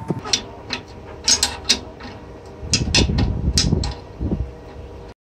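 Open-end wrench clinking and tapping on the steel nuts and bolt at the base of an air compressor pump as they are turned, with dull knocks and rubbing between the clinks. The sound cuts off abruptly near the end.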